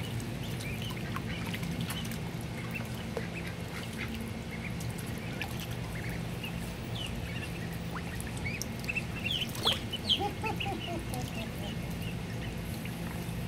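Ducklings peeping over and over, short high calls throughout, with a louder cluster of calls about ten seconds in, over a steady low hum.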